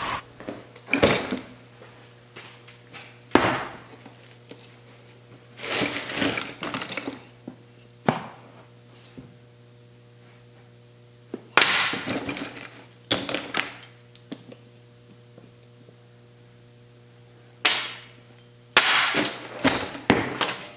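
Irregular thunks, knocks and scrapes as a leather work boot and metal caster wheels are handled on a steel workbench, over a low steady hum.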